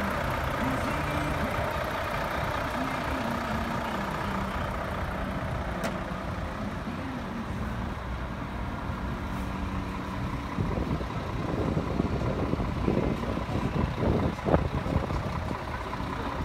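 Truck engines running, getting louder and rougher in the last few seconds.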